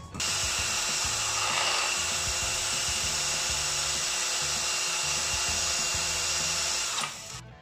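Cordless drill running steadily, spinning a vacuum cleaner motor's armature while sandpaper is held against the copper commutator, a steady high whine with a sanding hiss. The commutator is being cleaned where worn-out carbon brushes had let metal scrape it. The drill stops suddenly about seven seconds in, with soft background music underneath.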